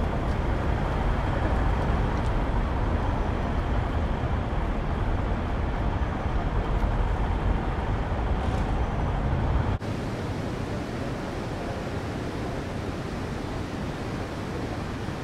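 Steady rumble of road traffic ambience, heavy in the low end, which cuts off abruptly about ten seconds in and gives way to a thinner, even hiss.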